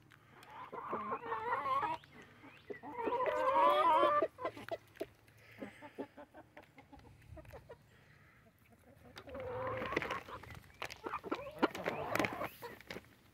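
Backyard hens clucking and calling while being hand-fed sunflower seeds: two drawn-out, wavering calls in the first few seconds, a quieter spell, then more calls near the end.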